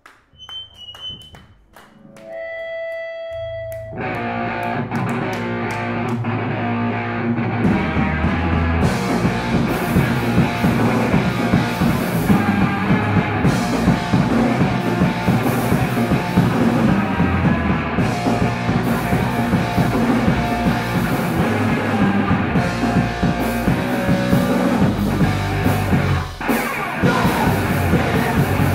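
Live punk rock band with electric guitar, bass and drum kit starting a song. A few clicks and a single ringing note come first. Loud full-band playing with a held low note starts about three seconds in, and the drums and cymbals join at about eight seconds.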